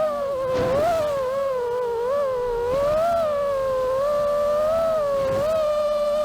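FPV quadcopter's Mr. Steele 1750kv brushless motors and propellers whining in flight, the pitch wavering up and down with throttle.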